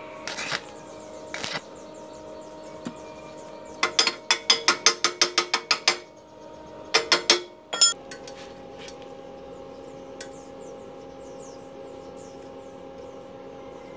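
Stick arc-welding electrode struck in short bursts on a thin square steel tube: two brief arc crackles, then a rapid run of about a dozen sharp crackling taps over two seconds and a few more shortly after. In the second half only a steady hum remains.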